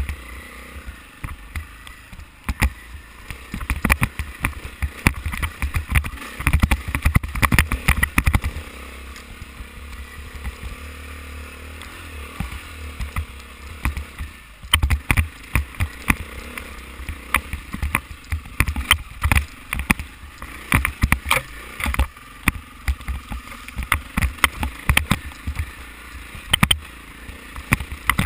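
Dirt bike engine running at low revs on a downhill run over rocky trail, with frequent sharp knocks and rattles as the bike jolts over rough ground.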